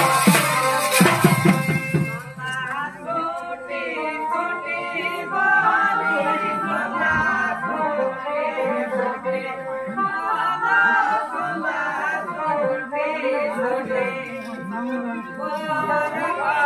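Live Manasa Mangal folk music. Loud drum and cymbal strikes ring for about the first two seconds, then a voice sings a wavering melodic line over light accompaniment.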